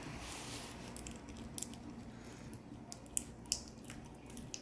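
Freshly activated glue slime being squished and kneaded by hand, giving a scatter of small sticky clicks and snaps as it starts to turn tacky.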